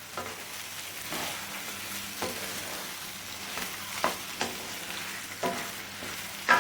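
Chicken pieces sizzling in hot oil with onions and ginger-garlic paste in a karahi while a spoon stirs them, knocking and scraping against the pan several times, loudest near the end.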